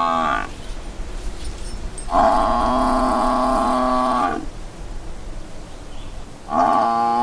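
Water buffalo calling: long, steady, low calls, with the end of one call at the start, a full call of about two seconds a couple of seconds in, and another beginning near the end.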